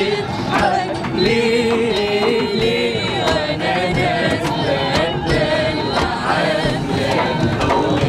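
A woman singing an Egyptian song in Arabic, unaccompanied by melody instruments, with a few other voices joining in and sharp percussive hits keeping time.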